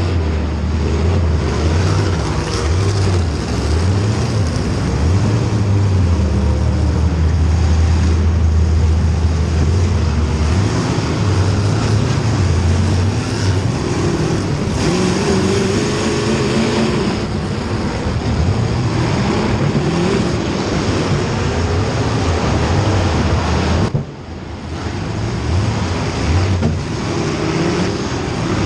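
Race car engines running on track, their pitch rising and falling as they accelerate and lift. Near the end the sound drops away abruptly for a moment, then returns.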